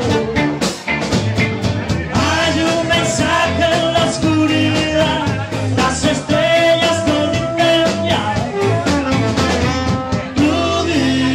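Live band playing with trombone, electric guitars and drums, with a voice singing over it.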